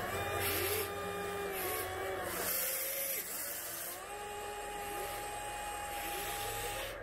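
Electric motors of a 1/14-scale Volvo EC160E RC excavator (Double E Hobby) whining as the boom, arm and bucket move. The whine rises and falls in pitch with the load and stops and starts between movements, with a few short hissy bursts in the first three seconds.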